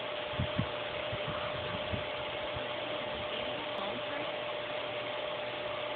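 Steady machine-like hum and hiss with a constant high whine, and a few soft low knocks in the first two seconds.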